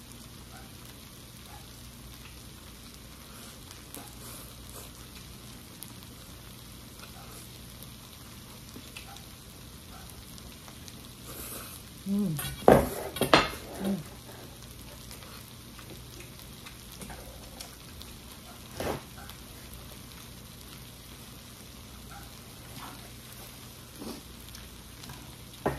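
Steady sizzle of stir-fried calamari, octopus and jjolmyeon noodles in a pan left over the heat of a tabletop burner. About halfway through comes a burst of loud noodle slurping, and a few seconds later a single sharp tap.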